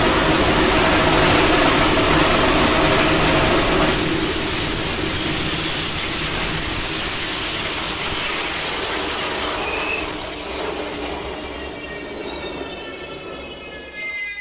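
Vulcan hybrid rocket engine firing on a static test stand: a loud, steady roar that drops a step about four seconds in and then slowly fades. From about ten seconds in, a high whistle glides downward as the burn tails off.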